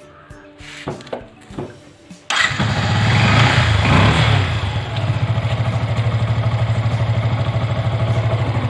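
Yamaha FZS single-cylinder motorcycle engine starting: it catches suddenly about two seconds in on a freshly fitted battery, runs fast for a moment, then settles into a steady, evenly pulsing idle.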